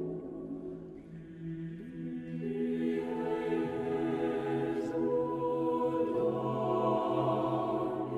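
Slow choral-sounding background music of long held chords that shift slowly from one to the next.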